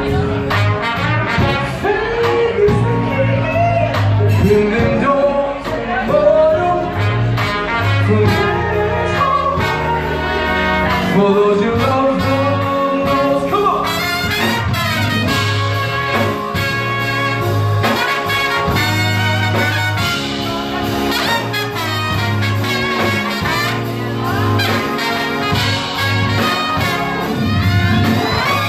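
Live band playing an instrumental break: trumpet and trombone carry the melody over a steady bass line, drums and keyboard.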